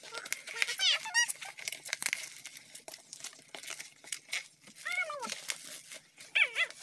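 Plastic bubble wrap being torn and crinkled open by hand, an irregular run of crackles and rips. A few short high-pitched calls sound over it, about a second in, near five seconds and, loudest, near the end.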